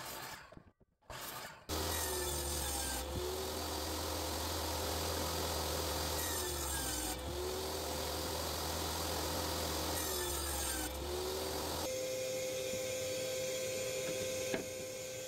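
A power tool working wood runs steadily for about ten seconds, with a sweep in its sound repeating about every four seconds. Near the end its low drone stops, leaving a steady hum and a single click.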